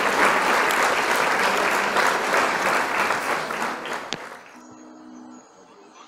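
Audience applauding, a dense patter of many hands clapping that cuts off suddenly about four seconds in, leaving only a faint low hum.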